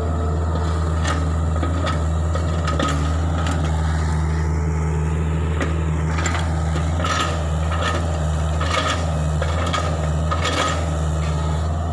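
Hitachi Zaxis 48U mini excavator's diesel engine running steadily as it digs, with a series of sharp metallic clanks and knocks from the bucket and arm working the soil, more of them in the second half.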